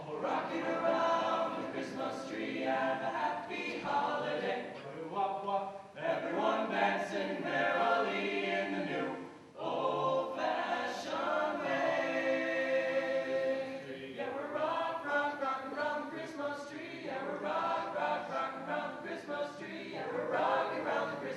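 High school choir singing in phrases, with brief breaks between them.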